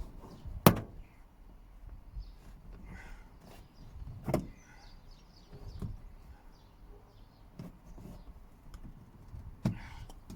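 Plastic trim clips of a car's door card being prised out of the door with a cloth-wrapped flathead screwdriver: scattered sharp clicks and knocks, the loudest about a second in, others near the middle and near the end.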